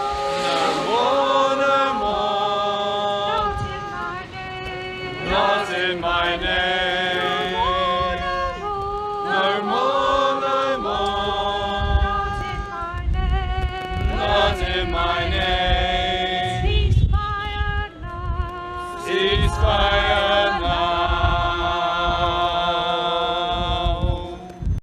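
A crowd of marchers chanting in unison: a repeated slogan sung on held notes, phrase after phrase about every four to five seconds. It cuts off suddenly.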